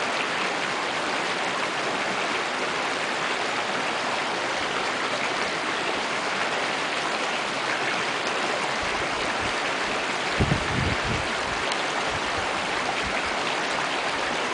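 Steady rushing of a mountain river's flowing water, an even hiss with no rhythm. A few short low thumps come about ten seconds in.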